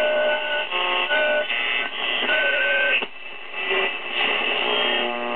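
Vintage Zenith Trans-Oceanic transistor radio receiving through its speaker: a steady hiss of static with short whistling tones that come and go and shift in pitch, as on a set being tuned across a band.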